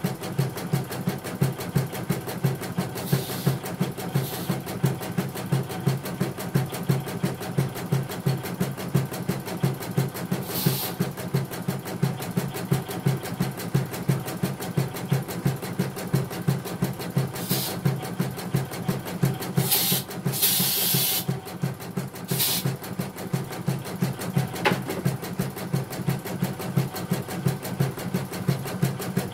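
CNY portable computerized embroidery machine stitching a design: a steady, fast, regular needle rhythm while the embroidery unit moves the hoop. A few brief hissing noises come and go over it.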